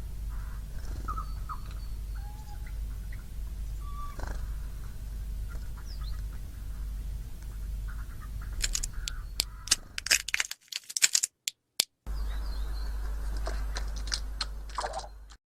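Siberian jay giving a few faint short mewing calls over a steady low rumble, followed by a run of sharp clicks and taps.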